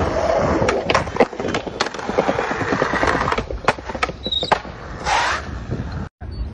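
Skateboard wheels rolling over stone paving, broken by a quick, irregular run of sharp board clacks as the tail and nose are popped and the wheels land during fast footwork tricks.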